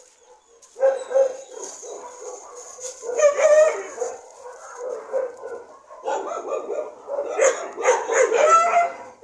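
Dog vocalizing in bursts of drawn-out pitched calls whose pitch slides up and down, the loudest about three seconds in and again in a long stretch from about six seconds on.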